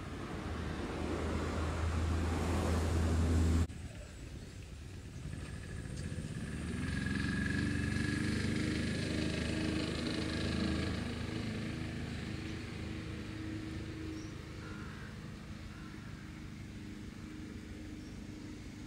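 A low rumble with hiss builds and then cuts off suddenly about four seconds in. After that, an engine hum swells, holds for several seconds, and fades away, like a motor vehicle going by.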